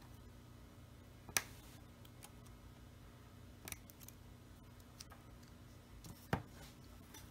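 A few light clicks and taps of small parts as the top bracket of an opened iPhone 8 is lifted off and the phone's pieces are handled. About four sharp clicks, the loudest about a second and a half in and another a little after six seconds, over a faint steady hum.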